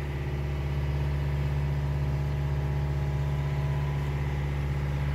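Motor boat's engine running steadily under way at sea, a constant low hum with no change in speed.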